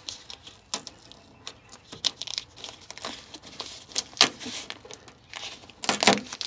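Irregular crinkling, rustling and clicking of hands working inside a car door with its trim panel off, with a sharper clatter about four seconds in and a louder rustle near the end.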